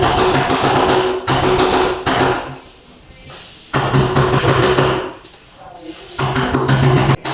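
Rapid hammering in four bursts of about a second each, with short pauses between them.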